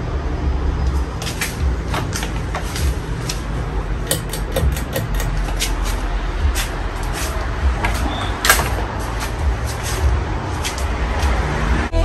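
Casablanca Four Seasons III ceiling fan running, its moving air giving an unsteady low rumble, with irregular light clicks.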